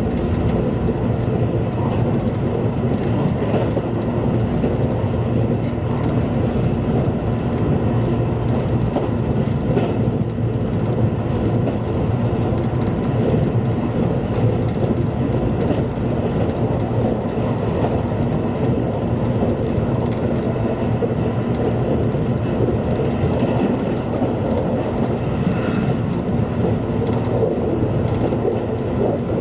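JR Kyushu limited express train running, heard from inside the carriage: a steady, continuous rumble of wheels on rail.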